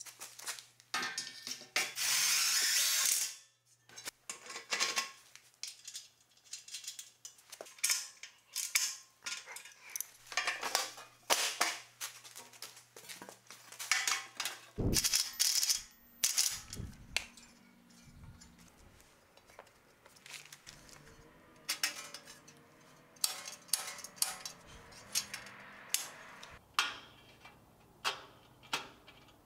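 Steel welding-cart parts clanking and knocking as they are fitted together: an expanded-metal mesh drawer and sheet-metal shelf panels set into the painted steel frame, giving many short, sharp metallic clanks and clicks. A loud hiss lasting about a second and a half comes about two seconds in.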